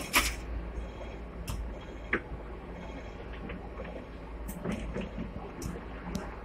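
Stationary seventh-generation Hong Kong tram heard from its front platform: a steady low hum with scattered light clicks and rattles. The tram's front folding door bangs shut right at the start.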